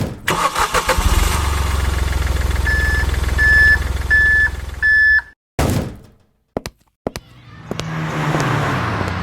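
A vehicle engine turns over and settles into a steady low running sound, with a single-tone beeper sounding four times over it. It cuts off suddenly, then there is a short whoosh, a few clicks, and another vehicle sound swelling near the end with its pitch dropping.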